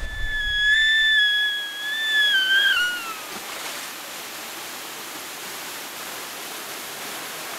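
A woman's high scream on a water slide, held for about three seconds, wavering and then falling away at the end. After it comes the steady rush of water pouring down the flume.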